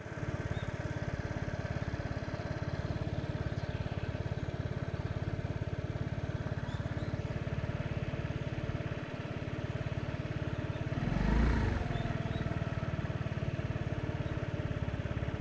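Honda Giorno AF77 scooter's small water-cooled single-cylinder engine idling steadily at standstill, swelling briefly about eleven seconds in. The engine has overheated from a lack of coolant, which has set the warning lamp's coolant-fault code.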